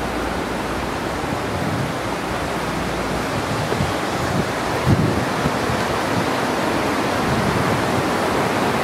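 Steady rush of a rocky mountain river, the Noro River, flowing below a bridge, with a few soft low thumps around the middle.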